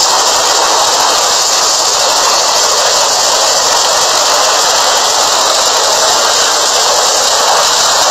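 Loud, steady rushing noise of wind and rough sea with a hiss, from a played clip of a helicopter over a ship's deck in heavy water.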